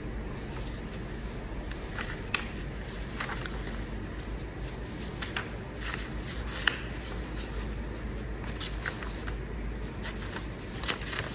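Pen and paper being handled while a form is filled in by hand: scattered light taps and rustles, with a steady low hum.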